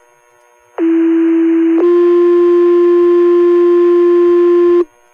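Two-tone fire paging tones over the dispatch radio, setting off the volunteer firefighters' pagers: a steady low tone for about a second, then a slightly higher tone held for about three seconds that cuts off sharply. Faint radio hiss before the tones start.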